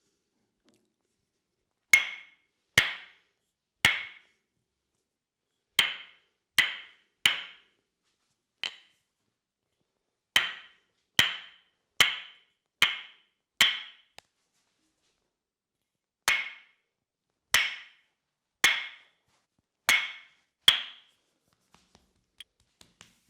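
Tok sen massage: a wooden mallet tapping a wooden wedge, sharp knocks each with a short ringing tone. They come about one a second in groups of three to five, with short pauses between the groups.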